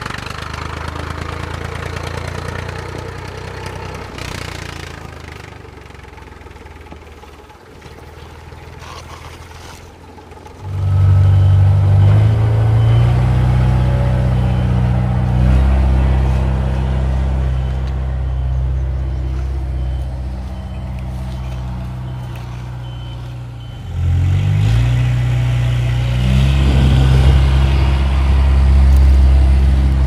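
Tractor engine running at a steady pitch, quieter for the first ten seconds, then coming in loud with a short rise in pitch about ten seconds in; it eases a little and rises and gets louder again about six seconds before the end.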